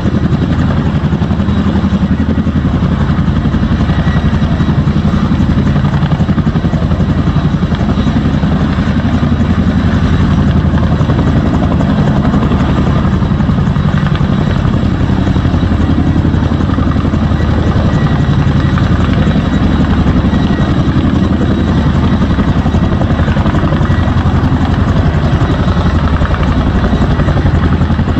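Tandem-rotor Chinook helicopter hovering low, its rotor blades beating out a loud, steady rapid chop over a steady high turbine whine. It holds the hover as it draws fire retardant up its hanging hose from a portable tank.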